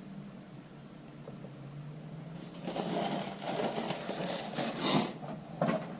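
Handling noises at a workbench: rustling and scraping with a few knocks, starting about two and a half seconds in, over a low steady hum.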